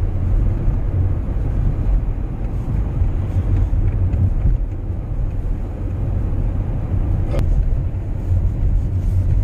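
Steady low engine and road rumble inside a moving van's cabin, with a single sharp click about seven seconds in.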